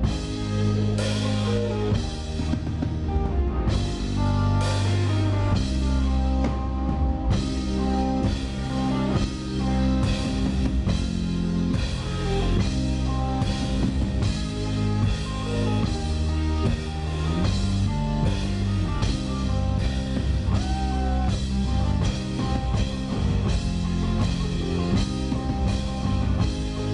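A live rock band playing a song: a drum kit keeps a steady beat under guitar and bass.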